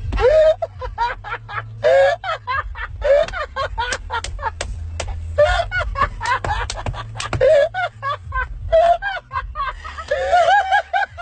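People laughing hard inside a car: repeated short bursts of snickering and giggling with breathy gasps between, over a steady low rumble.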